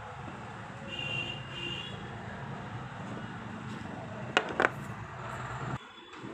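A large kitchen knife chopping through hard pumpkin onto a cutting board: two sharp knocks a fraction of a second apart about four and a half seconds in. Under it runs a steady low rumble that cuts off suddenly near the end.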